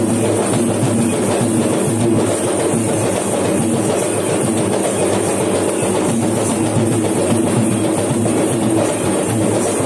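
Sri Lankan low-country ritual drums, played as yak bera, beating a fast, continuous rhythm to accompany the dance.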